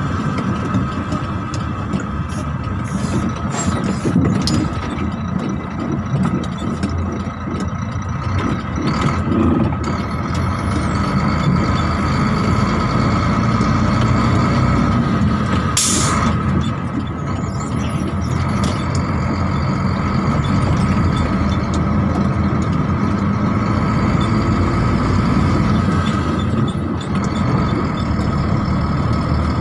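Trailer truck's diesel engine running steadily on the road. About halfway through there is one short hiss of released air, typical of the truck's air brakes.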